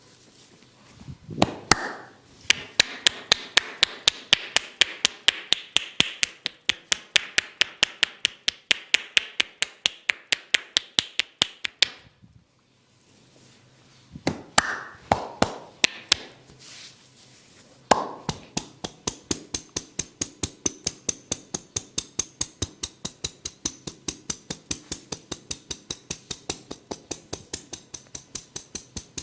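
Rhythmic percussive massage strikes (tapotement): the masseur's hands beat on the body in fast, even claps or chops, about four a second. The strikes stop twice for a moment before starting again.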